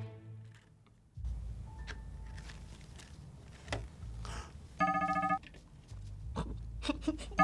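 An electronic alarm beeps twice, each about half a second long, once about five seconds in and again at the very end: the sound meter tripping at a noise. Between the beeps there are scattered light clicks and rustles over a low rumble.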